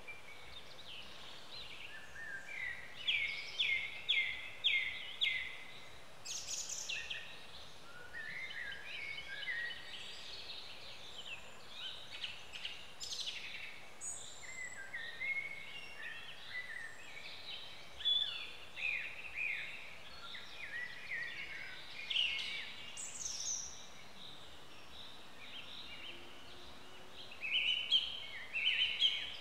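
Wild songbirds chirping and singing in woodland, with short whistled notes and trills scattered throughout over a steady faint background hiss; a run of five evenly spaced repeated notes comes about three seconds in.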